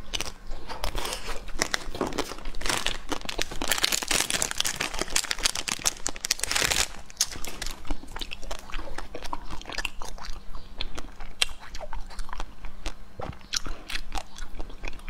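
Close-miked eating of chocolate-coated Magnum mini ice cream bars: sharp crackling bites through the hard shell and chewing. A louder, dense run of crackling fills the middle few seconds, then separate crunchy bites follow.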